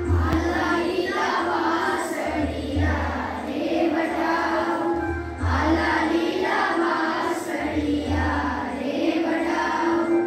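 A class of children singing a Gujarati folk song together in unison, with a low beat pulsing under the singing.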